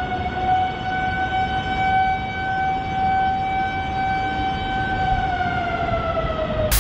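Civil-defence-type warning siren sounding one long steady wail, over a constant hiss of background noise. Near the end the pitch sags and the siren cuts off abruptly.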